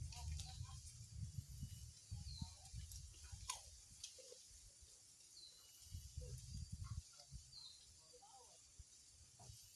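Quiet outdoor ambience: faint short chirps over a steady high hiss, with low rumbles on the microphone in the first couple of seconds and again past the middle. One sharp click sounds about three and a half seconds in.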